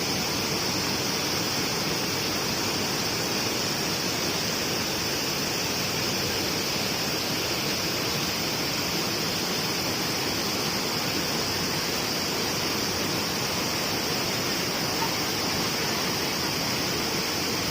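Waterfall: a steady, unbroken rush of falling water, with a constant high-pitched hiss above it.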